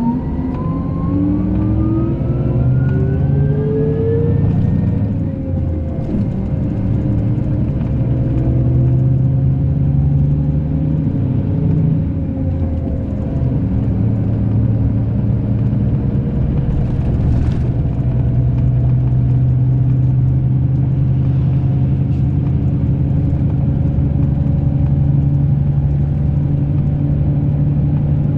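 Scania K380 coach engine pulling through the gears: its pitch climbs for about five seconds, drops at a gear change, climbs again, then holds steady.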